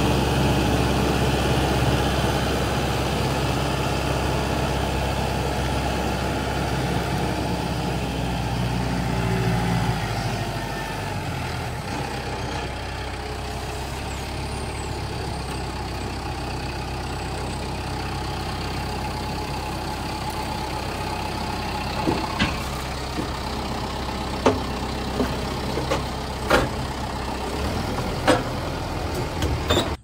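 Kubota M6060 tractor's diesel engine running while its front loader carries a stack of pallet lumber; about ten seconds in the engine note drops and it settles to a steady idle. Several sharp knocks sound over the idle near the end.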